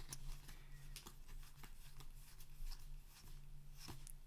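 Magic: The Gathering trading cards being flicked through one by one from an opened booster pack: a quick run of soft card clicks and slides, over a low steady hum.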